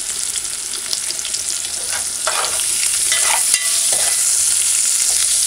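Onion, scallion, sweet pepper and saltfish sizzling in a metal pot with a little water just added, stirred with a spoon that scrapes and clicks against the pot. The sizzle grows louder about halfway through.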